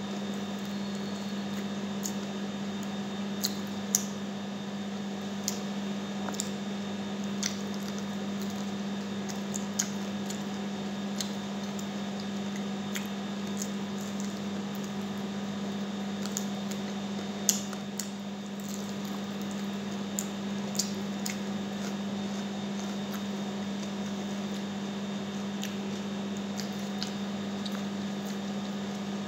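Close-up eating sounds: wet chewing, lip-smacking and finger-licking while eating sticky glazed chicken by hand, heard as scattered small clicks and smacks over a steady low hum.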